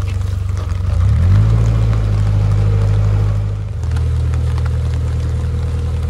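Narrowboat's diesel engine running under way, revving up about a second in as the boat is swung round, then easing back to a steady lower speed near four seconds.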